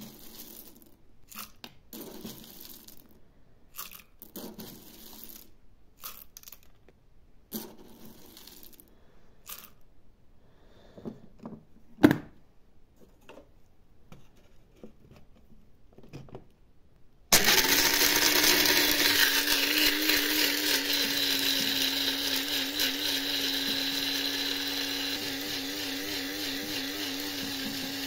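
Whole coffee beans rattle as they are scooped from a tin into a small electric blade coffee grinder, and there is one sharp click about twelve seconds in. A little past halfway the grinder's motor starts and runs steadily, grinding the beans and slowly growing quieter.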